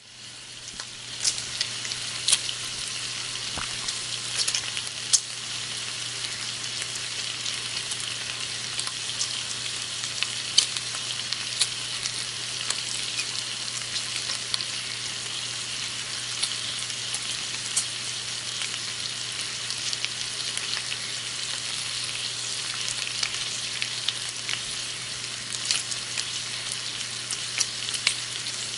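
Bacon frying in a pan: a steady high sizzle with frequent sharp pops and crackles of spitting fat, fading in at the start.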